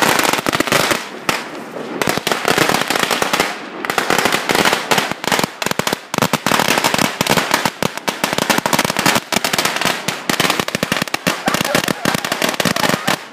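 A long string of thousands of firecrackers burning on the ground: a dense, rapid, unbroken crackle of small bangs, with a couple of brief dips in the first few seconds.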